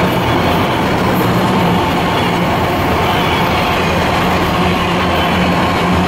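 Freight train of tall autorack cars rolling past close by: a loud, steady noise of steel wheels running on the rails.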